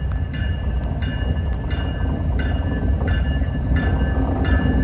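A pair of Norfolk Southern diesel locomotives rumbling as they pass, with a bell ringing steadily, about one and a half strikes a second.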